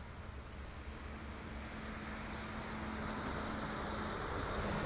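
Two CSX diesel locomotives approaching slowly, their engines running with a low rumble and a steady hum, growing gradually louder.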